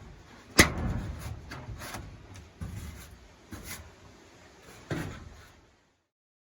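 A run of knocks and bumps from handling things: one sharp knock about half a second in, then several lighter knocks and rubs. The sound cuts out completely near the end.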